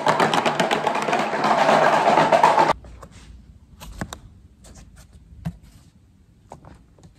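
Fast rattling of a pair of round hand-held paddle percussion instruments with beads on cords, a dense run of rapid clicks that stops abruptly under three seconds in. After that only a few faint taps and handling knocks.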